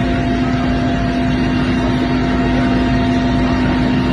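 Helicopter engine and rotor noise heard from inside the cabin: a loud, steady drone with a constant hum.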